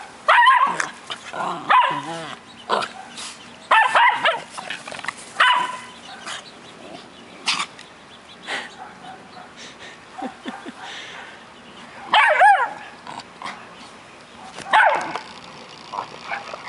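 Dogs barking in repeated short bursts while playing, the barks spaced irregularly a second or more apart.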